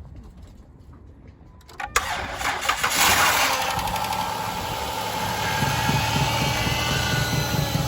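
2008 Chrysler Town & Country minivan's V6 engine being started: a click about two seconds in, about a second of cranking, then it catches, flares up and settles into a steady idle with a steady whine.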